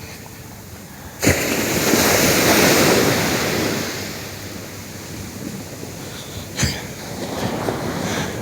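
Small shore-break wave crashing on the beach: a sudden loud break about a second in, then the rush of white water that slowly fades into a lower wash. A short sharp slap comes near the end, with wind on the microphone throughout.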